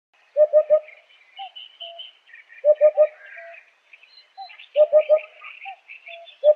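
Eurasian hoopoe calling its soft, low 'hoop-hoop-hoop', three quick hoots to a phrase, repeated about every two seconds, with a fourth phrase starting at the end. Fainter chirps from other small birds sound higher up between the phrases.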